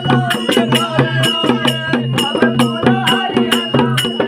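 Devotional folk music: a singing voice over a quick, steady beat of sharp percussion strikes, about four a second, with a pulsing bass note underneath.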